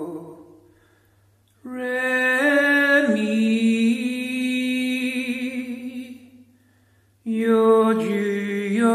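A single voice singing long, wordless held notes that step in pitch, ringing with a strong room echo off bare walls. The first phrase dies away, a new one rises about a second and a half in and fades near six and a half seconds, and another begins about seven seconds in.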